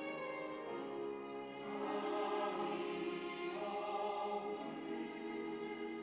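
Mixed church choir singing a Sunday anthem in held chords that change every second or so, swelling louder a little under two seconds in.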